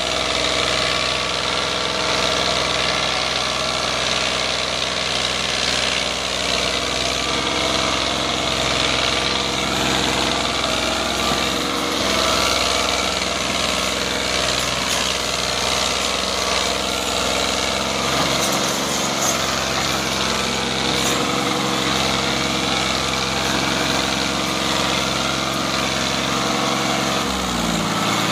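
Tractor's diesel engine running steadily under load, pulling a trolley piled high with sugarcane; near the end its pitch drops as the engine slows.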